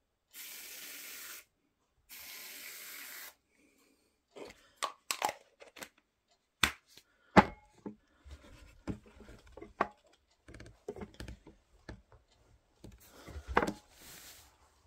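Aerosol can spraying foam into a pair of trainers in two steady hisses of about a second each. After that come scattered knocks, clicks and rustles.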